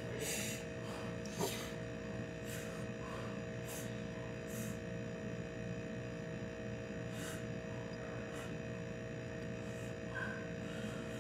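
Room tone with a steady electrical hum, and a few faint short hissy sounds now and then.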